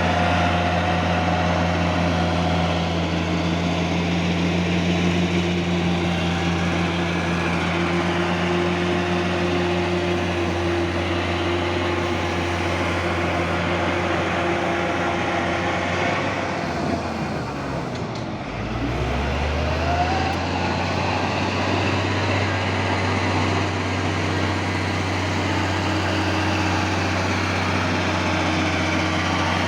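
Cat D6G bulldozer's diesel engine running steadily. A little past halfway through, its revs drop sharply and then climb back up.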